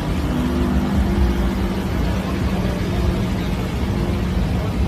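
Lifted GMC Sierra Denali pickup's engine idling steadily, with a constant low hum.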